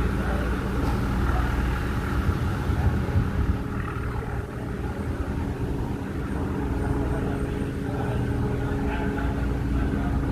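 A ship's engines running with a steady low rumble as the vessel leaves the dock, with a faint extra hum joining about halfway through.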